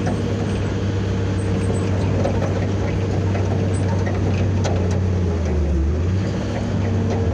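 Cat 320B hydraulic excavator's diesel engine running steadily as the machine moves forward onto a truck, its pitch dipping briefly about five and a half seconds in.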